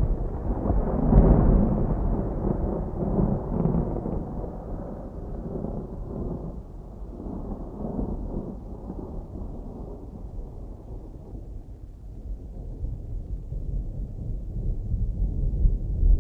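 Distant thunder rolling, a long low rumble that swells about a second in, fades slowly over several seconds and builds again near the end.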